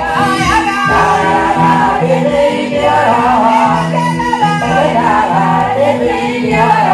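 Live praise music played through a PA: a Yamaha PSR-SX900 arranger keyboard plays a steady rhythm with a stepping bass line, and voices sing over it.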